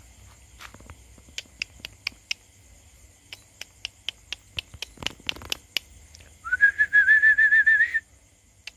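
A run of sharp clicks, roughly two to three a second, then a person whistling a single trilled, warbling note for about a second and a half, the loudest sound.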